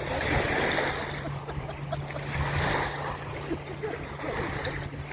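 Small river waves washing onto a sandy beach, the wash swelling and fading every couple of seconds, over a steady low motor hum.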